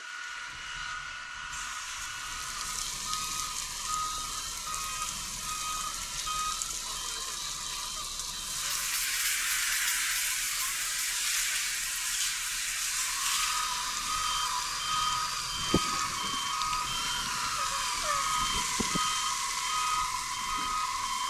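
A vehicle's reversing alarm sounds in steady repeated beeps over a constant hiss. A louder rush of hissing noise comes in about nine seconds in and drops away about four seconds later.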